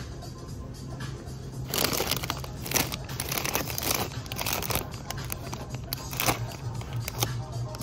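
Plastic snack bag crinkling and rustling as it is picked up and handled, starting about two seconds in, over background music.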